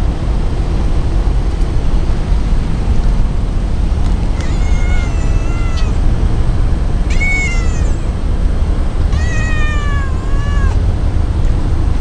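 Brown tabby-and-white cat meowing three times in a cute, high voice, each meow drawn out for about a second and bending in pitch, the last one longest.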